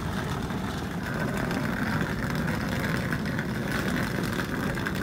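Wheels of rolling luggage running over a paved footpath: a steady rumble with a light rattle.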